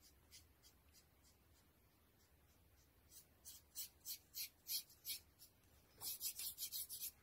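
Paintbrush strokes of acrylic paint on a hardboard panel: a few light strokes, then about three strokes a second from about three seconds in, and a quick run of short scrubbing strokes near the end.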